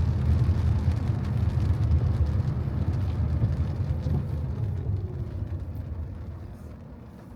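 Car driving on a wet road: a low rumble of engine, road and tyre noise that fades steadily over several seconds.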